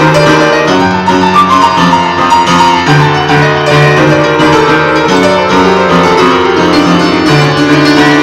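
Old upright piano played in an improvised jam: held bass notes that change every second or so under busy chords higher up, played continuously.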